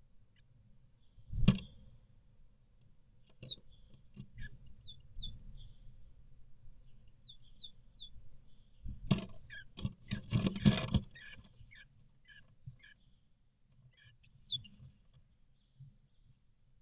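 Great tit calling outside the nest box: short, high, falling chirps in several small groups. A loud thump on the wooden nest box comes about a second and a half in, and a burst of knocking and scratching on the box comes around ten to eleven seconds in.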